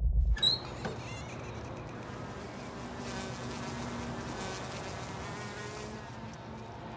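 A housefly buzzing steadily, as a cartoon sound effect. A low rumble cuts off abruptly about half a second in, followed by a few brief high rising squeaks before the buzzing settles.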